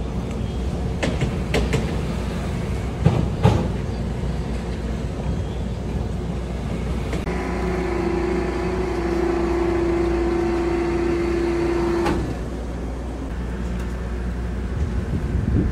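Steady low rumble of a ferry's engines, with several sharp knocks in the first four seconds. A steady pitched tone starts a little past the middle, holds for about five seconds and cuts off sharply.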